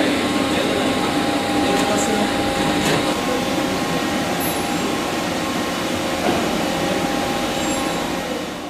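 Heavy-duty metal-turning lathe running: a steady machine hum with several faint steady whining tones from its drive.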